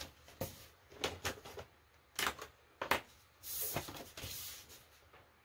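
Paper banknotes and a ring binder's plastic pouch being handled: a few sharp clicks and taps, then a brief rustle of paper about two-thirds of the way in.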